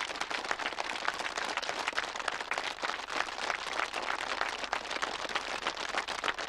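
A large crowd clapping their hands together, many overlapping claps forming a dense, steady patter.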